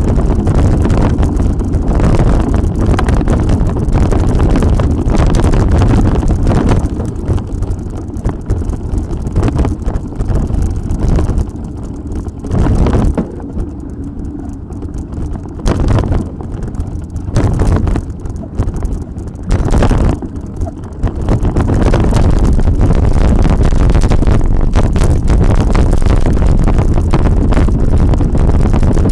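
Wind buffeting the microphone of a camera on a mountain bike riding along a dirt track, with a low rumble. It eases in the middle with a few short gusts, then comes back loud and steady for the last part.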